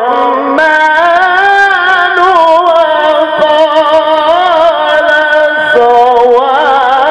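A male qari reciting the Quran in the melodic tilawah style into a microphone: long held notes with wavering, ornamented turns. About half a second in his pitch leaps up, and it drops back down near the end.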